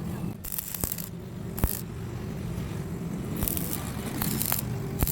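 Electric arc welding on a motorcycle seat frame: several short bursts of welding crackle, each under a second, with sharp metal clicks between them.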